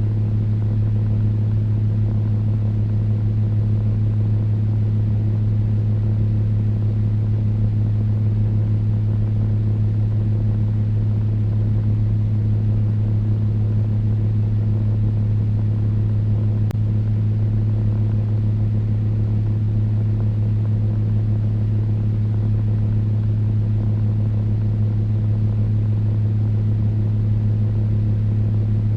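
Electric fan running steadily: a low motor hum with a few fainter higher tones over an even whoosh of moving air.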